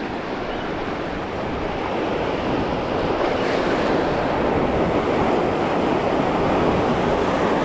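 Sea surf breaking and washing over shoreline rocks: a steady rush of water.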